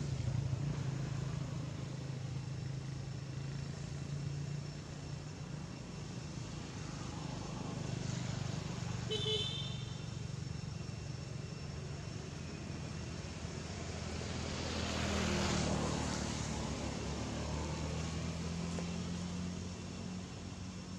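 Road traffic running: a steady low engine hum, one brief horn toot about nine seconds in, and a vehicle passing, its noise swelling and fading about two-thirds of the way through.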